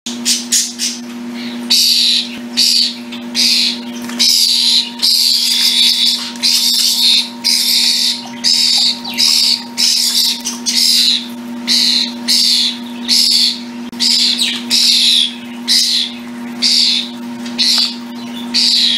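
Young European starlings calling over and over, harsh rasping calls about one and a half a second, the begging calls of hand-raised fledglings. A steady low hum runs underneath.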